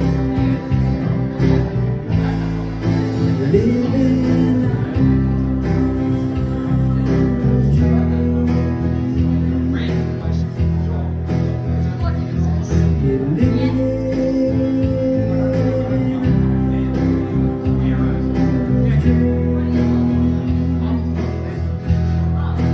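Live band playing, with acoustic guitar, electric bass and keyboard, a long held note sliding in pitch about four seconds in and again near the middle.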